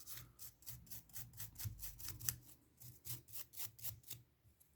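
Small brush scrubbing quickly over the metal contacts of a Pioneer SA-9800 amplifier switch, a run of light, hissy strokes several times a second with a short pause near the end. It is sweeping off the eraser crumbs left from rubbing the oxidation off the contacts.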